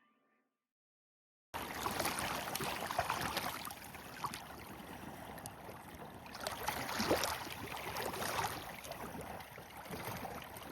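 Small waves lapping and splashing at a lakeshore with wind noise, a fluctuating wash sprinkled with small clicks, starting suddenly about a second and a half in.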